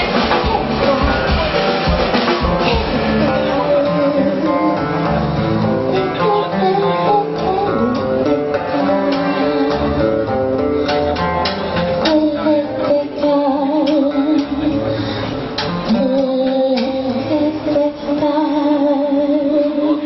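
Live song: a woman singing into a microphone, accompanied by strummed acoustic guitar, with long wavering held notes near the end.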